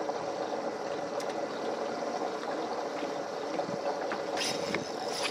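Lake water lapping and sloshing against a bass boat's hull, a steady wash, with a few light clicks near the end.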